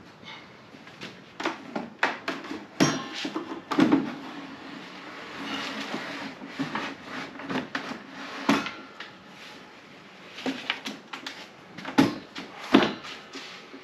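Irregular knocks and clunks of a small benchtop wood lathe being unhooked from a French-cleat wall mount and set down on a wooden stand, the two loudest thumps a second apart near the end.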